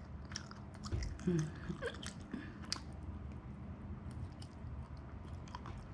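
Close-up mouth sounds of someone eating Korean fried rice cakes in sticky sauce: soft wet clicks and smacks of chewing and a fork-fed bite. A short hummed voice sound comes about a second in.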